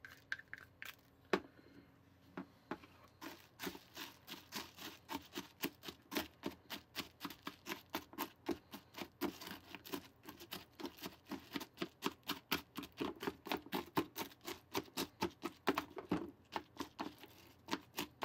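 Spoon stirring and scraping puffed rice cereal into a warm butter and marshmallow mixture in a small dish. A few scattered scrapes, then steady scraping clicks about four a second from about three seconds in.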